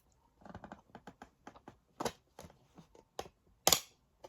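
Irregular light clicks and taps of a plastic DVD case being handled, with one louder click near the end.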